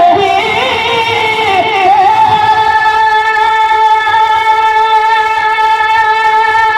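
A man singing a naat in a high voice: a wavering, ornamented phrase, then one long held note from about two seconds in.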